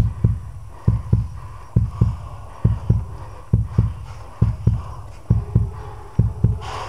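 Heartbeat: a steady lub-dub of paired low thumps, a little over one beat a second.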